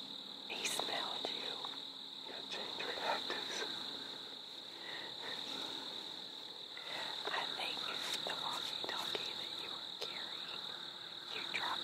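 Steady high-pitched trilling of crickets, with hushed whispering from two people at times.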